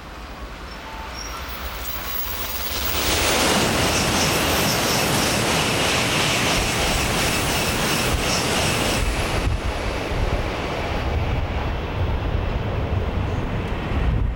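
N700-series Shinkansen bullet train passing through at high speed. A rumble builds over the first few seconds, then a sudden loud rush of air and wheel noise with a high whine from about three seconds in to about nine and a half, followed by a lower rumble as the train goes by, dropping away near the end.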